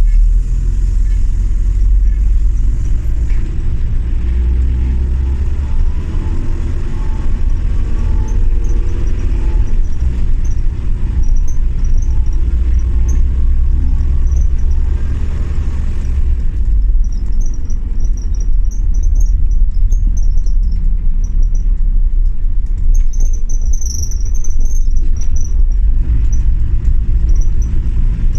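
Bus engine and road rumble heard inside the cabin of a moving single-deck bus: a heavy, steady low rumble, with the engine note rising and falling as the bus drives on.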